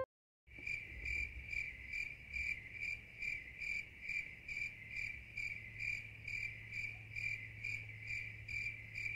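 Cricket chirping in an even rhythm, about two chirps a second, starting after a brief moment of silence.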